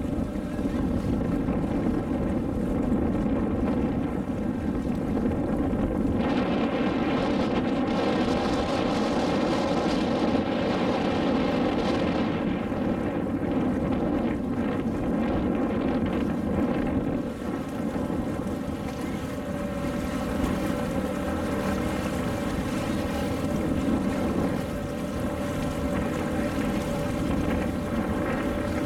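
Small motor launch's engine running steadily under way, a droning hum with wind noise on the microphone and the rush of water. A louder rushing hiss swells between about six and twelve seconds in.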